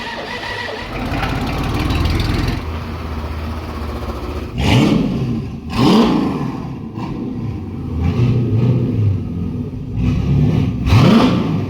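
5.0 V8 engine of a Ford Ranger running, revved up sharply three times with a rising pitch each time: twice close together about five seconds in and once near the end.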